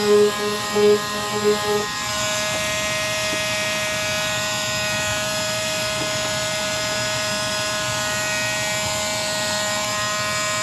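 Electric power sander working on motorcycle bodywork: a lower buzz in short pulses at first, then a steady motor whine from about two seconds in.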